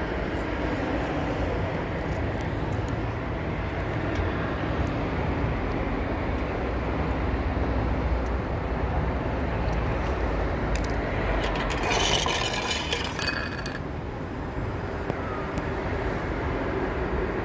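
Steady low outdoor background rumble. About twelve seconds in comes a brief crinkling rustle, which fits the cat-food pouch being squeezed.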